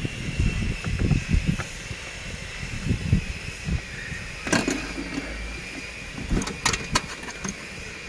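Hand work on a car's plastic air-filter housing and engine-bay fittings: dull knocks and rubbing, then a sharp click about halfway through and a quick run of clicks soon after, as clips and a connector are snapped into place.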